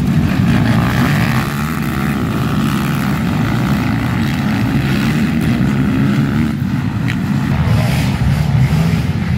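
A pack of race quads launching off the start line together and accelerating hard past the fence, their engines running loud in one continuous mass of engine noise with some rising revs in it.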